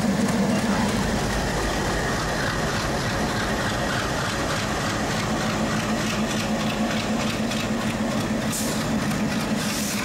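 Train engine running with a steady low hum over rail noise and faint clatter, with a short burst of hiss near the end.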